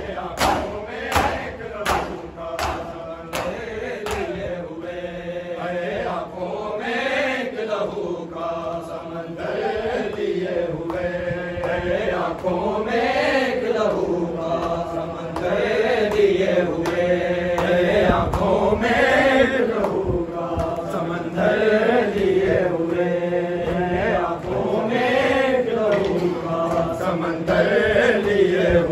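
Crowd of mourners beating their chests in matam, about two slaps a second, fading out over the first few seconds; then men's voices chanting a noha in unison in a slow melody that rises and falls in long phrases.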